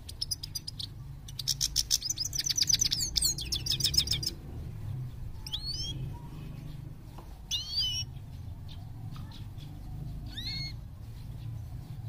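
European goldfinch singing: about four seconds of fast, buzzy twittering at the start, then three separate short gliding call notes spread through the rest.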